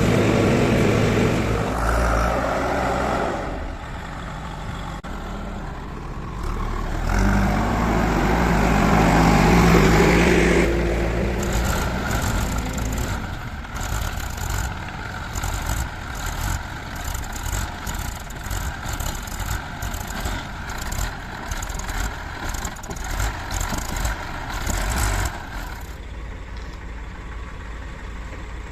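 Heavy diesel engine working under load: it swells up loudly twice, then runs with a rapid, uneven pulsing for about a quarter of a minute before dropping to a steadier, quieter run near the end.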